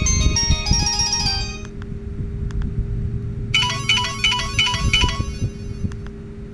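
Ringtones from a Samsung GT-E1195 mobile phone playing through its small speaker: a fast melody that stops about a second and a half in, then after a pause a short, repeated chime pattern from about three and a half to five seconds. A steady low hum runs underneath.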